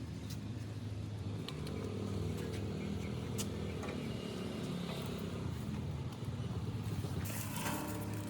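A motor running steadily with a low hum, with scattered light clicks and knocks over it.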